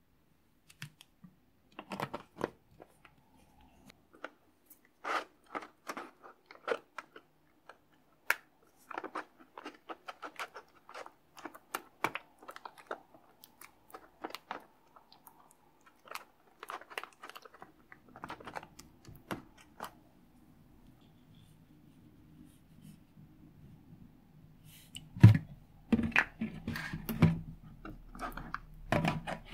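Silicone spatula stirring a thick, wet slime mixture in a plastic tub: a run of sticky clicks and squelches, with louder knocks and scrapes against the tub near the end.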